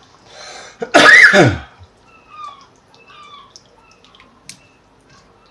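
A person gives one loud, sharp cough or throat-clear about a second in, likely from the curry spice fumes catching the throat. After it come faint squeaks and light ticks of a silicone spatula stirring coconut milk into the pan of lentils and squash.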